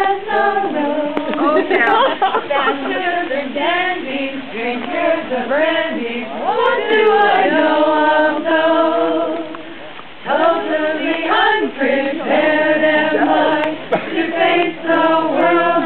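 A group of voices singing together unaccompanied, with a short break about ten seconds in before the singing resumes.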